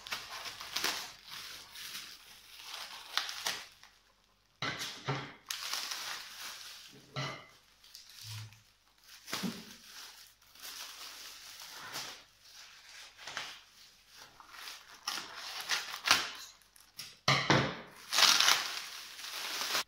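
Plastic wrap crinkling and crackling in irregular bursts as it is snipped with scissors and pulled away by hand, with a brown paper bag being torn and pulled open; loudest near the end.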